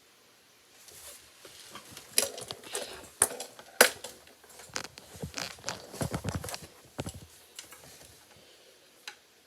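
Knife carving a bar of soap: a run of short scraping cuts and crisp snaps, the sharpest about two to four seconds in, then one last click near the end.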